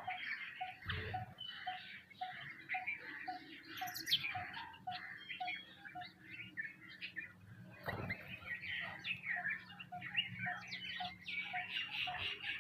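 A flock of small birds, sparrows among them, chirping busily, with many short chirps overlapping continuously.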